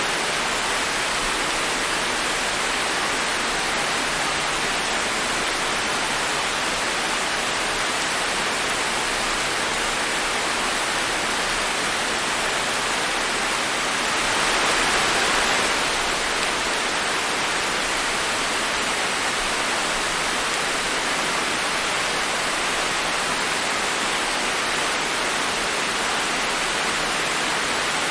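Steady rain falling, an even hiss with a brief swell about halfway through.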